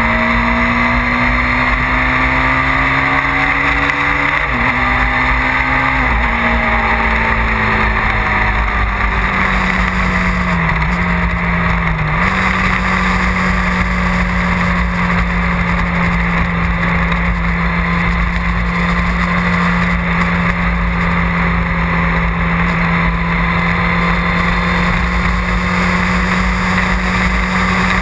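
Motorcycle engine heard from an onboard camera at road speed. Its pitch climbs, drops sharply about four and a half seconds in like an upshift, steps again soon after, eases down, and from about twelve seconds on holds a steady drone. A constant rush of wind and road noise runs underneath.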